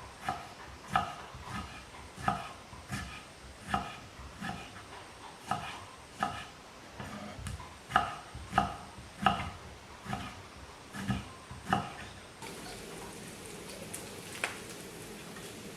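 Slow, even chopping on a wooden board, about one and a half knocks a second, each knock with a short hollow ring. Near the end the chopping stops and a steady hiss starts.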